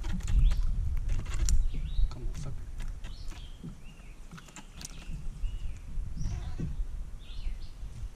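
Wind rumbling on the microphone with scattered clicks and knocks of handling. From about three seconds in come several short bird calls, each a quick rising-and-falling note.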